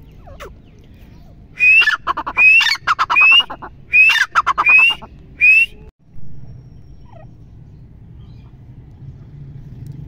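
Grey francolin calling: a loud series of about six rising, ringing notes in quick succession, each with a fast rattle beneath it, from about a second and a half in until just before six seconds.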